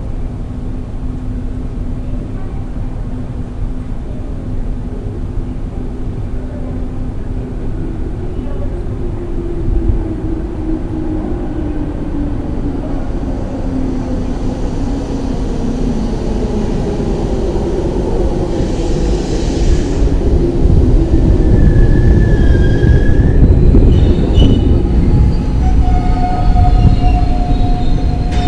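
Tobu 6050 series electric train approaching and pulling into the platform, growing steadily louder with the rumble of wheels on rail and a motor whine that shifts in pitch. Brief wheel and brake squeals come in the last few seconds as it slows.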